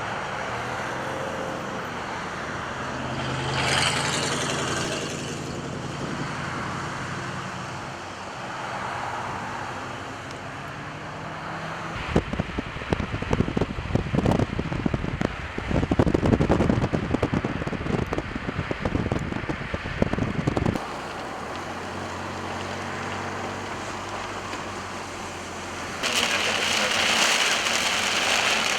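Vehicle engine idling with a steady low hum in a windstorm; from about twelve seconds in, strong gusts buffet and rumble for roughly nine seconds. Near the end, rain starts pelting with a steady hiss.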